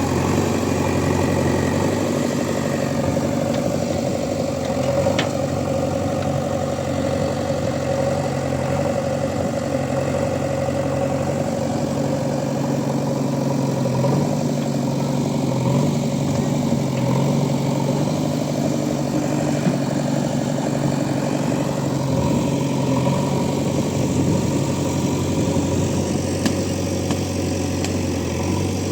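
Backhoe loader's diesel engine running steadily, its pitch rising briefly a few times near the middle as it takes load.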